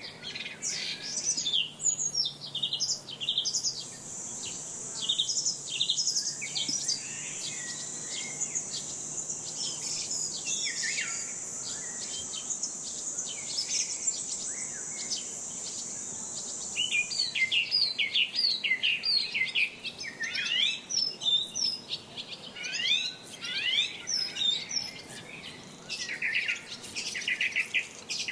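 Several small birds chirping and singing in quick, varied calls. A steady high-pitched buzzing trill runs alongside from about four seconds in and stops about seventeen seconds in.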